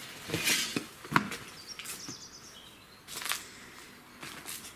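Irregular scuffs and rustles of people moving through a cluttered room, with a sharp click about a second in. Faint bird chirps are heard about two seconds in.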